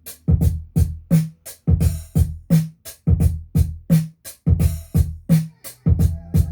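Programmed drum-machine beat: about three hits a second, with a pitched low kick thudding among sharper hits. The sustained bass drops out, so only the drums play.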